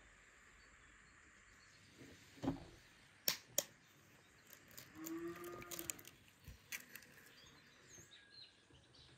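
Egg tapped twice against the rim of a glass bowl and cracked open, a little over three seconds in. About five seconds in a cow moos once in the distance, and birds chirp faintly.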